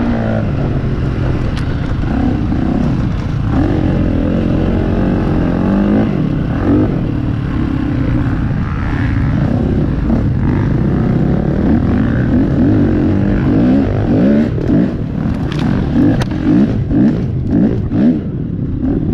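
Dirt bike engine revving up and down as it rides, its pitch rising and falling over and over, with quicker rises and drops in the last few seconds.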